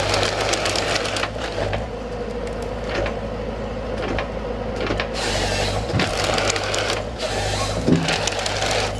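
Forestry harvester with a Log Max harvesting head at work: its diesel engine runs with a steady hum while the head handles timber, with scattered knocks and cracks.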